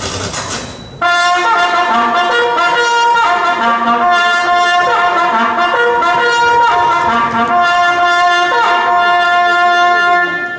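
A solo trumpet playing a slow melody of long held notes, starting about a second in.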